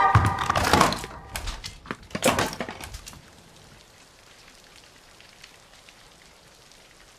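A burst of sharp cracking and crashing impacts over about three seconds, then a faint steady hiss.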